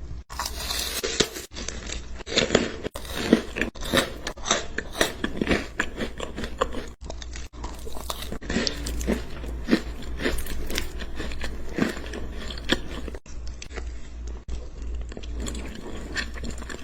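Close-up crunchy biting and chewing of food: a dense, irregular run of crisp crunches, cut off abruptly and resumed several times.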